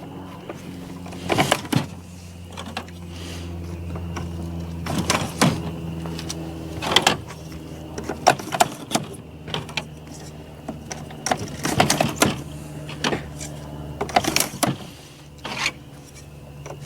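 Plastic webs and end pieces clicking and knocking as they are slid into place on a Nudura one-sided foam ICF form panel, over a steady low hum.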